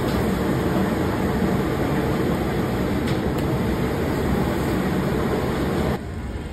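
Steady loud roar at a Mongolian barbecue griddle station, from its burners and the kitchen ventilation, with a faint click or two of the cook's sticks on the griddle. It drops off suddenly near the end.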